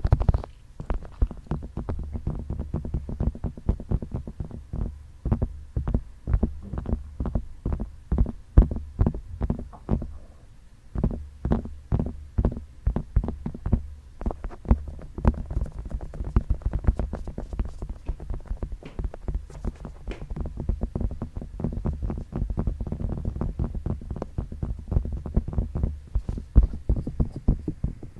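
Fingertips tapping rapidly on microphone ears, about five or six muffled taps a second over a low thudding rumble, with a brief lull about ten seconds in.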